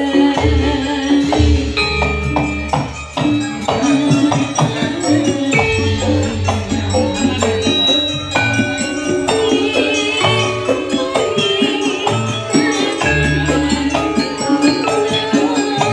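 Javanese gamelan playing jathilan music: metal-keyed saron and demung struck with mallets in a fast, steady beat, their pitched notes ringing, under repeated deep kendang drum hits.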